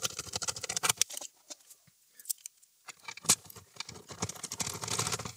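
Hand screwdriver driving screws into a turntable's plastic platter assembly: rapid small clicks and scraping in two spells, with a quiet pause between them.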